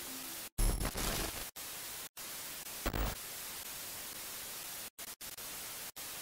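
Steady static hiss, cut by several brief dropouts to silence, with a low thump about half a second in and another about three seconds in.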